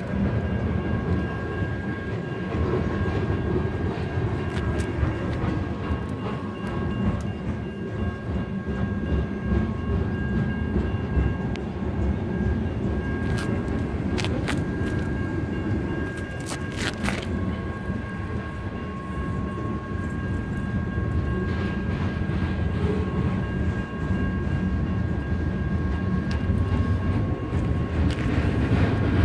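Freight cars of a mixed freight train rolling through a grade crossing: a steady rumble with rail clatter, a steady high ringing tone over it, and a few sharp metallic clanks about halfway through.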